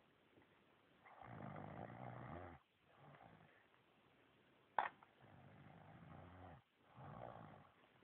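A man snoring in his sleep: three rough, rattling snoring breaths, about a second and a half each, with quiet gaps between them. A single sharp click comes just before the second snore.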